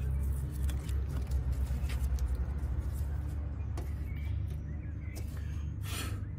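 Steady low engine rumble, like a vehicle idling, with a faint pulsing and a few light clicks and knocks of handling parts under the hood.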